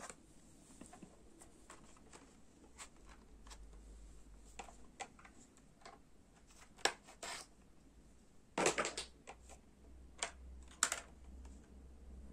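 Sporadic small clicks and rustles of a plastic toy lantern being handled while cardboard packing is worked out of it. The loudest is a short cluster of clicks a little under nine seconds in.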